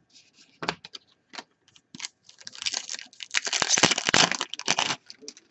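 Crinkling and crackling of a trading-card pack wrapper being handled and torn open, with scattered clicks from the cards. The crackling gets dense and continuous from about halfway in until near the end.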